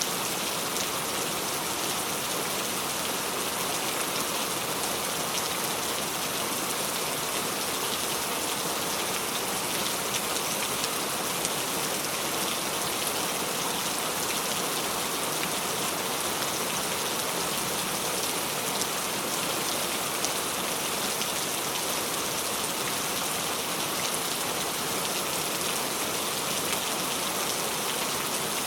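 Steady rainfall, a constant hiss of rain with many fine drops pattering on a surface.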